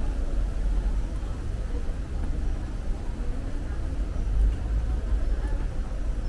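Steady low rumble of city background noise, with faint voices of passers-by.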